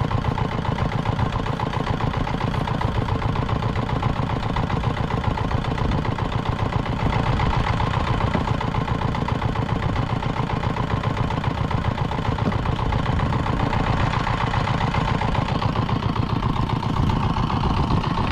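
A small fishing boat's engine running steadily at an even pace throughout.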